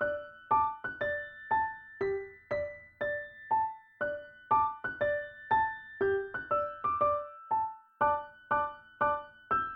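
Background music: a simple, unhurried melody of single struck notes, each ringing out and fading, about two a second.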